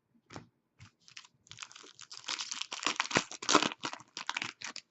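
Hockey card pack wrapper crinkling and tearing as it is opened, a dense run of rapid crackles that starts about a second and a half in, after a few light clicks of cards being handled.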